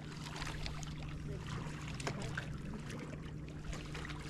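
Water lapping and small ticks against a fishing kayak's hull, over a low steady hum.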